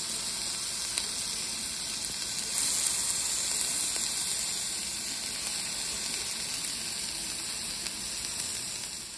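A fried egg and sautéed vegetables sizzling steadily in a frying pan, a little louder around three seconds in, with a few faint ticks, fading away at the very end.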